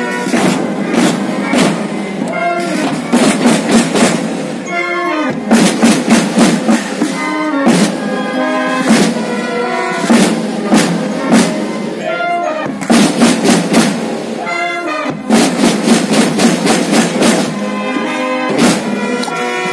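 Tamborrada drums and a marching band playing together: many drum strokes under a brass melody.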